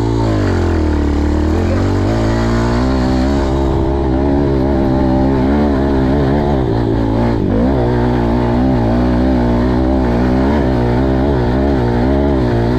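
Kawasaki 110 dirt bike's single-cylinder four-stroke engine pulling hard up a steep dirt hill, its note rising and falling with the throttle, with a brief drop in revs a little past halfway.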